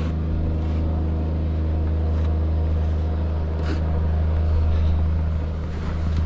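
Bobcat S70 skid-steer's diesel engine running steadily, a constant low drone that swells slightly partway through.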